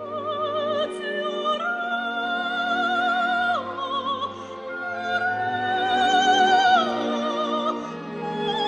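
Soprano singing a slow line of long held notes with wide vibrato, rising and falling between phrases, over soft sustained orchestral chords.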